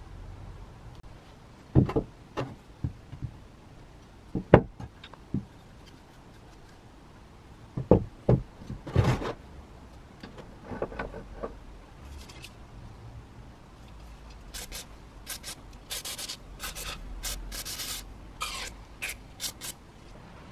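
Old cast-iron spiral screw jack being handled on a wooden workbench: a series of sharp knocks and rubs as it is picked up, turned and set down on the wood. Near the end, a run of short hissing sprays, like an aerosol of penetrating oil being squirted onto the rusty jack.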